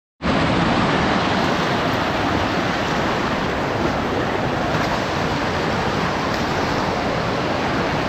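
Mountain stream rushing and splashing over boulders in small cascades close by, a loud, steady rush of water.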